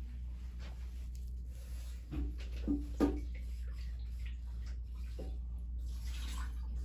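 Steady low room hum, with a few brief faint handling sounds about two to three seconds in.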